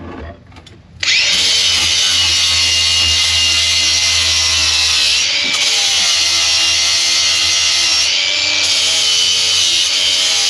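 Angle grinder with a flap disc starting up about a second in and grinding steadily along the crusted, painted arm of an old boat knee. It gives a loud, even high whine, its load shifting slightly a few times as the disc works.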